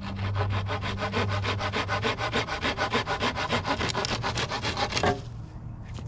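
Handsaw cutting through a thin strip of wood with quick, even strokes, about five a second, stopping abruptly about five seconds in.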